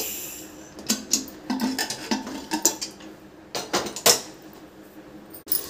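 Aluminium pressure cooker being opened after cooking: a short hiss of leftover steam as the whistle weight is lifted, fading within about a second, then metallic clicks and clanks as the lid is twisted and pulled off, the loudest near four seconds in.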